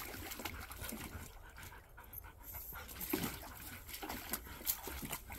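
Two dogs, a husky and another dog, playing: panting and scuffling on dirt, with a short whine about three seconds in.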